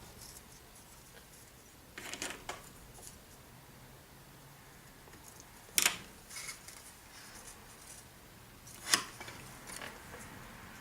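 A few light clicks and taps of small balsa-wood model parts being handled on a workbench: a soft cluster about two seconds in, then two sharp single clicks a few seconds apart.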